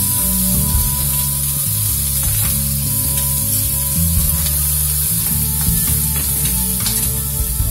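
Chopped onions and cashew pieces sizzling in hot sesame oil in a kadai, stirred with a steel spoon that scrapes and clicks against the pan.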